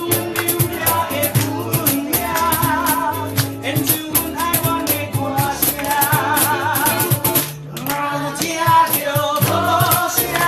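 Ukulele ensemble strumming a steady rhythm while voices sing a song with vibrato, the music dropping out briefly about three-quarters of the way through.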